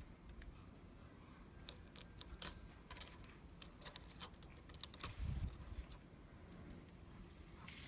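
Small metal objects clinking and tapping: a quick cluster of light metallic clicks with a brief bright ring, lasting a few seconds in the middle.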